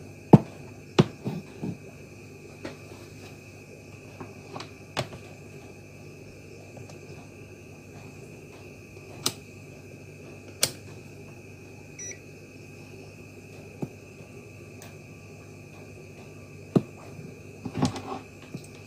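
Hands handling electrolytic capacitors and a digital multimeter on a cutting mat: scattered sharp clicks and taps, with a short electronic beep from the meter about twelve seconds in. A steady high-pitched whine runs underneath.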